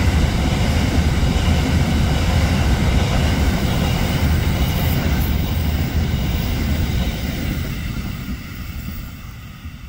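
Grain train hopper wagons rolling past on steel rails: a steady low rumble and clatter of wheels on track that fades from about six seconds in as the end of the train passes and moves away.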